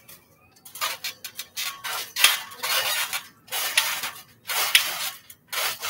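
Trampoline coil springs squeaking and jangling with each bounce as a child jumps, about one bounce a second, with short quiet gaps between.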